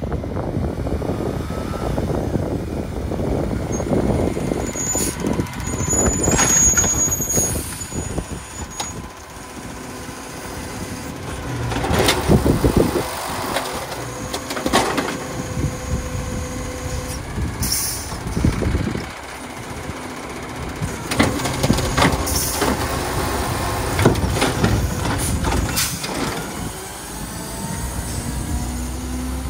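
Peterbilt 520 garbage truck with an Amrep HX-450 automated side-loader at work. The engine runs under everything while the air brakes release as it stops. The hydraulic arm then lifts and shakes a trash cart into the hopper, with a string of sharp bangs as the cart is dumped and set back down.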